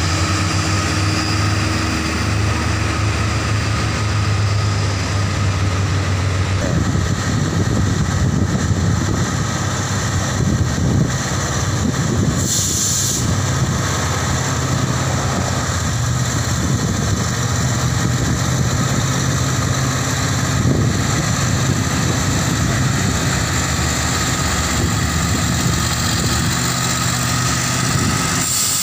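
Heavy trucks' diesel engines running on the road: a steady engine drone from a passing box truck, giving way about six seconds in to a lower, rougher engine note as a loaded, tarp-covered tractor-trailer draws near and passes.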